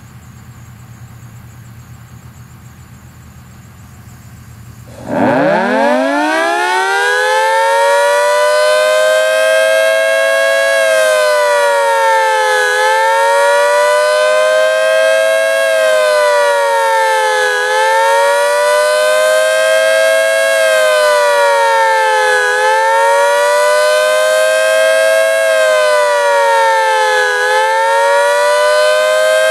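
Federal Signal 3T22 rotating outdoor warning siren. It starts with a low steady hum, then about five seconds in it spins up, its two-note chord climbing steeply in pitch. It then sounds a fast wail, dipping quickly and climbing back about every five seconds. The uploader says this fast wail timing needs adjusting.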